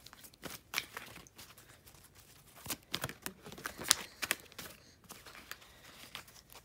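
A deck of oracle cards being shuffled and handled: scattered papery flicks and clicks, busiest from about three to four and a half seconds in.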